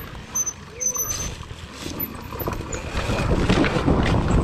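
Electric Sur Ron dirt bike rolling down a rough dirt single track, with tyre noise on the dirt and the bike rattling and knocking over bumps. It gets louder in the last second or so.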